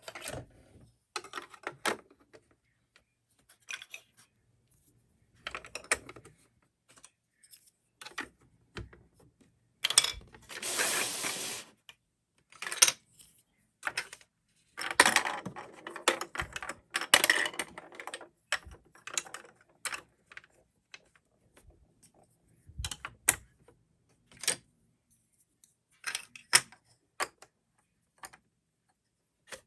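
Plastic marble run building blocks being handled and clicked together: scattered sharp clicks and knocks, with two longer stretches of dense rattling clatter, the first about ten seconds in.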